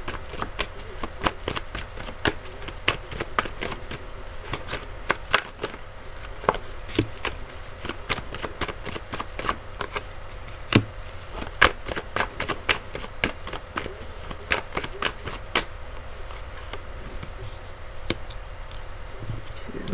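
Tarot cards being shuffled and dealt face down onto a cloth: irregular sharp clicks and snaps of the cards all through, over a steady low hum.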